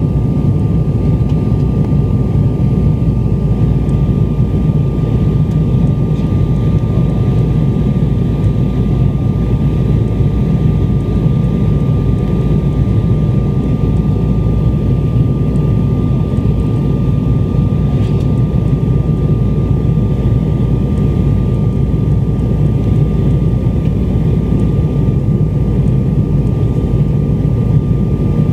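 Steady cabin noise of a jet airliner in flight, with engines and airflow making a constant low rumble and a thin steady whine above it.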